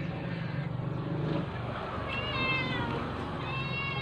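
A cat meowing twice, two short high-pitched calls, one about two seconds in and one near the end, over a steady low hum.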